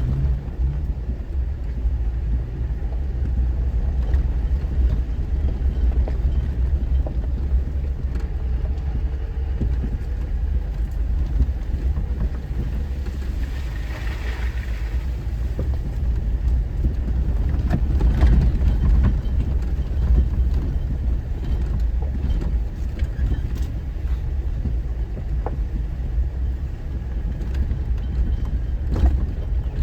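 An off-road vehicle driving slowly along a rough dirt mountain trail, heard from inside the cab: a steady low rumble of engine and drivetrain, with a few knocks and rattles from the bumps.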